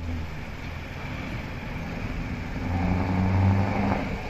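Road traffic passing, with a deep engine note that grows louder about two and a half seconds in and eases off near the end.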